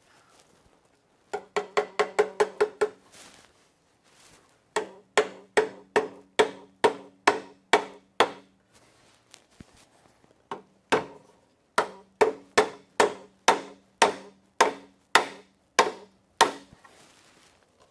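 Split-head soft-faced mallet tapping a wooden rail's tenon into the housed mortise of a curved leg during a dry fit, each knock with a short woody ring. Three runs of taps: a very quick burst about a second in, then two longer runs of steady taps about three a second, with a single tap between them.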